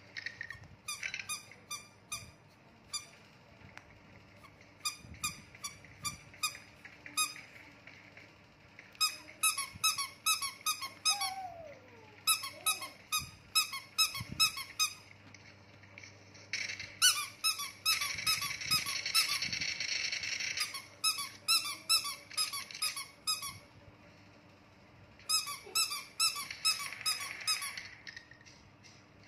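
Squeaky rubber toy dinosaurs squeezed by hand, giving runs of quick, same-pitched squeaks in bursts. One longer, drawn-out squeak comes a little past the middle.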